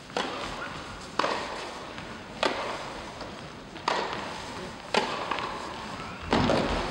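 Tennis ball struck by rackets in a rally on an indoor court, starting with a serve: five sharp hits about a second and a quarter apart, each echoing in the hall. A duller thump follows near the end.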